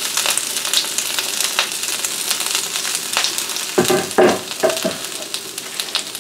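Chopped vegetables with ginger and garlic sizzling in hot sesame oil in a wok: a steady frying hiss with many small crackling pops. A short louder sound comes about four seconds in.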